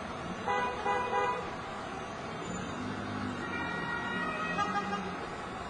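Emergency-vehicle warning tones: a few short toots within the first second, then a longer held tone from about three seconds in, over steady traffic noise.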